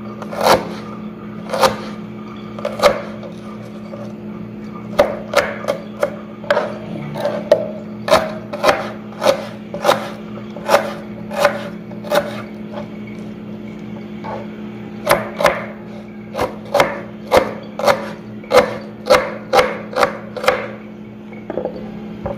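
Kitchen knife chopping tomatoes by hand: sharp, separate strikes of the blade in runs at about two a second, with a few pauses between runs. A steady low hum runs underneath.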